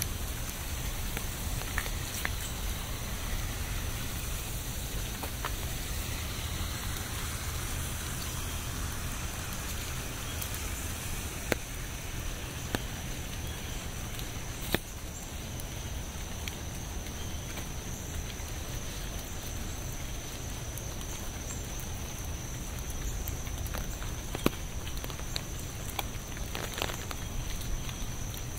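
Steady rain falling, an even hiss with scattered single drops ticking sharply at irregular moments.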